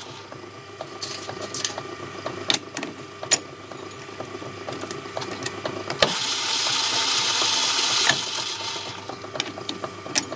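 Metal lathe running with a steady motor hum while turning a mild steel bar down, with scattered light clicks throughout. About six seconds in, a louder hissing cut comes in for about two seconds, beginning and ending with a sharp click.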